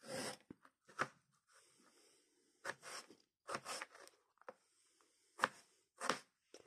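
Small Fox knife slicing through a peeled potato on a plastic cutting board: a faint, irregular series of short cuts and taps of the blade against the board.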